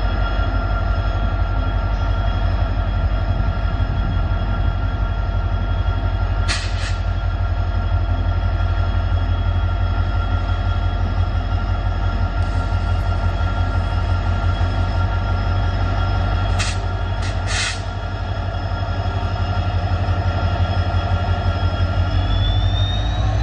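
WDP-4D diesel-electric locomotive, with an EMD 710 two-stroke V16 engine, running under load as it pulls a passenger train away from the platform: a deep steady engine drone with a whining tone over it. A few short sharp clanks come about 7 and 17 seconds in. Near the end the engine's pitch rises as it throttles up.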